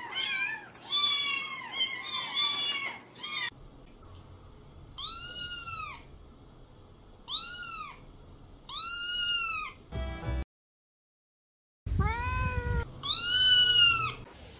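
Domestic cat meowing repeatedly: a run of overlapping calls at the start, then five separate drawn-out meows that rise and fall in pitch. A short silent break comes before the last two.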